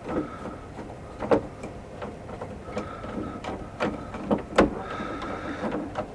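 Scattered sharp clicks and knocks of an interior door handle set being fitted and snugged onto a door, metal parts of the latch and handle tapping and seating against each other.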